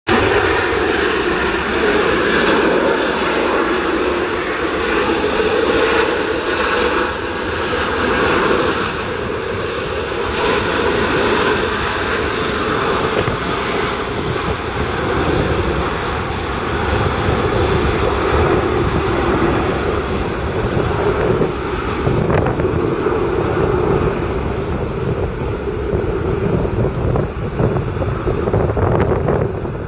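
Boeing 737-800's two CFM56 turbofan engines running with a steady jet rumble as the airliner rolls out along the runway after landing. The higher hiss fades after about halfway through as the aircraft slows, leaving a lower rumble.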